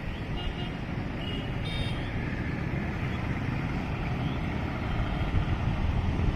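MEMU passenger train running, a steady low rumble that grows louder toward the end, with a few brief faint high tones in the first two seconds.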